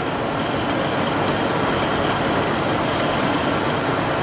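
Carbureted gasoline engine of a dump truck running steadily under light throttle in third gear, with road noise, heard from inside the cab. Steady and fairly quiet, with a few faint clicks about two to three seconds in.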